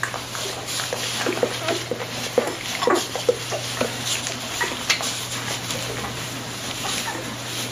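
One-week-old golden retriever puppies nursing, making many short, irregular squeaks and grunts, over a steady low hum.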